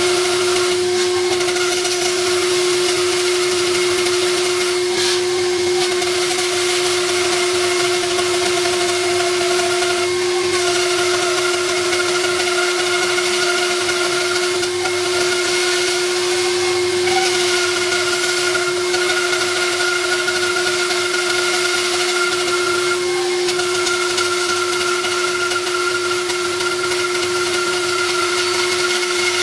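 Stationary woodworking machine running steadily, with a constant motor hum and whine over a hiss, as a board on edge is fed along its fence and cut.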